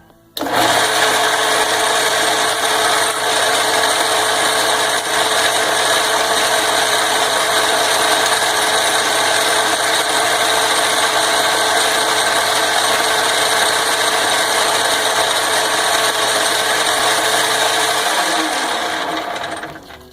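Vintage Atlas metal lathe with its single-phase 110-volt motor switched on, running steadily through a light turning pass on a workpiece. It starts suddenly, then is switched off near the end and spins down.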